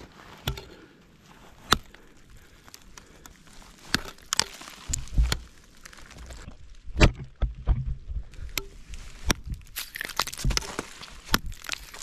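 Ice axes and crampon points striking thin waterfall ice: sharp, irregular knocks every second or two, some with a dull low thud.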